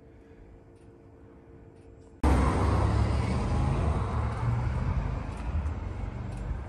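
A faint steady hum, then about two seconds in a sudden loud, low rumble of road vehicle noise that slowly fades.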